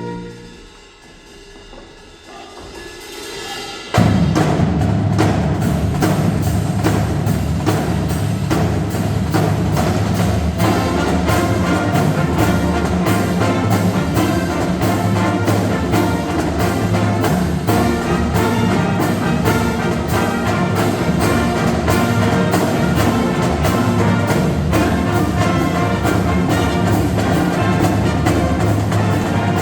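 Marching band playing: after a brief soft moment that swells up, the full band comes in suddenly and loudly about four seconds in, with drums and percussion driving a steady, busy beat under sustained band chords.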